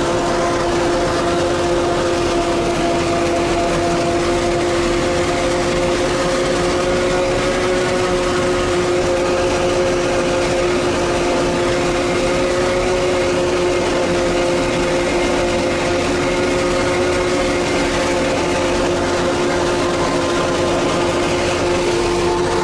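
A tractor and a Claas self-propelled forage harvester running steadily while chopping standing corn, heard from inside the tractor cab: an unbroken machine drone with a steady humming tone.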